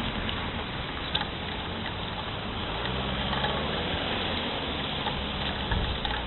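Steady outdoor background noise with a faint low hum, broken by a few short knocks and a deeper thump near the end.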